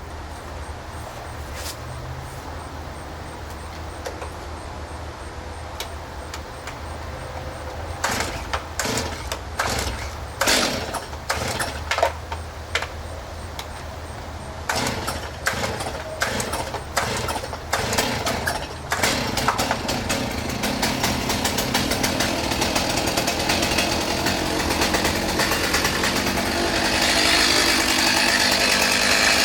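Stihl chainsaw idling, with wooden knocks and clatter in the middle as logs are handled. From about two-thirds of the way in, the saw runs harder and louder, as when cutting into wood.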